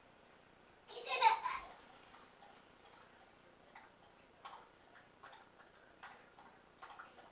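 Light, irregular knocks and taps from a toddler clambering inside a carpeted wooden cat tower, with one brief vocal squeal about a second in, the loudest sound.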